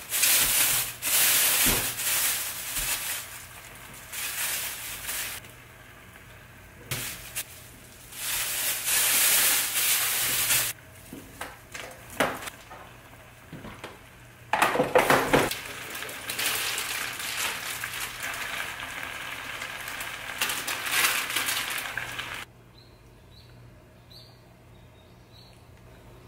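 Red sauce with rice cakes simmering and sizzling in a nonstick wok on a gas stove, with occasional clinks of a utensil against the pan. The sound comes in several separate stretches that cut off abruptly. About three-quarters of the way through it drops to a quiet background with a few faint high peeps.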